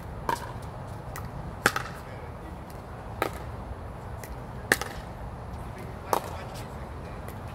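Pickleball paddles striking a plastic pickleball in a back-and-forth rally: five sharp pocks about a second and a half apart, alternately louder and softer.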